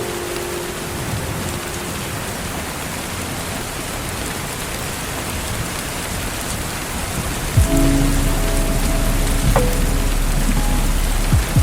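Steady rain hissing. About seven and a half seconds in, a soft held keyboard chord with a deep bass note comes in over it: lofi backing music.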